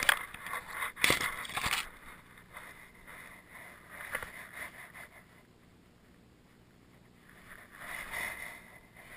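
Rustling and brushing picked up by a camera worn on a dog as the dog noses around in dry grass, in short bursts, strongest in the first two seconds and again near the end, with a stretch of near silence in the middle.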